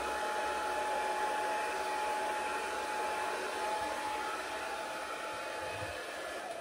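Hand-held hair dryer running steadily with a high whine, blowing wet acrylic paint across a canvas in a Dutch pour.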